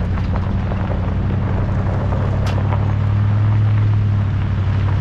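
Vehicle engine running steadily while driving on a dirt forest road, a low drone that swells a little past the middle, with a few brief clicks and rattles.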